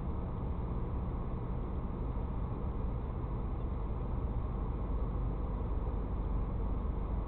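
Steady low rumble of a car idling in traffic, heard inside its cabin through a dashcam microphone.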